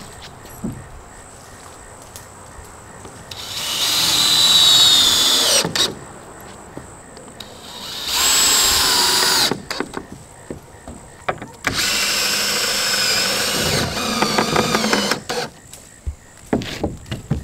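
Cordless drill driving screws through a wooden 2x4 purlin into the roof trusses: three runs of motor whine, each rising and dropping in pitch as a screw goes in. A few short knocks follow near the end.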